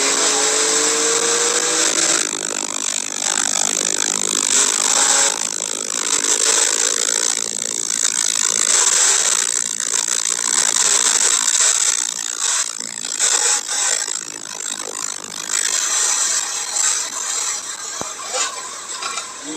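Porsche 911 Carrera 4S (992) twin-turbo flat-six accelerating hard on a flooded track, its note rising through the gears under a loud steady hiss of water spray from the tyres. The sound eases off near the end as the car slows.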